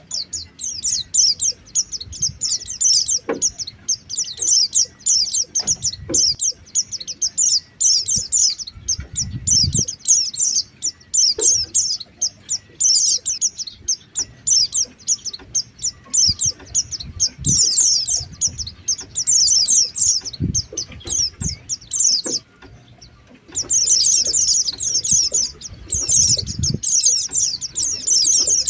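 White-eyes (pleci) twittering in fast, dense high chatter, the lure call used to draw pleci down; it stops for about a second around 22 seconds in. Occasional low thumps sound underneath.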